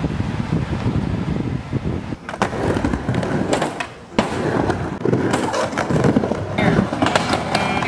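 Wind on the microphone over open water, then from about two seconds in skateboard wheels rolling on a wooden backyard mini ramp, with repeated sharp clacks of the board hitting the ramp's deck and coping.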